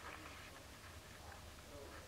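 Near silence: room tone with a low steady hum and a few faint, indistinct sounds.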